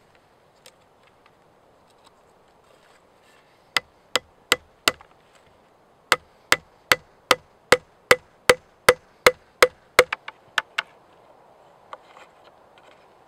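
A wooden peg is hammered into the joint of a green-branch stick chair, making sharp wooden knocks. Four quick blows come about four seconds in; after a short pause a steady run of about a dozen follows at roughly two and a half a second, ending with a few lighter taps.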